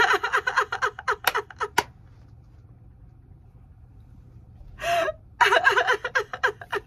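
A woman laughing hard in two bouts. The first burst of laughter dies away about two seconds in, and after a pause she breaks into laughter again near the end.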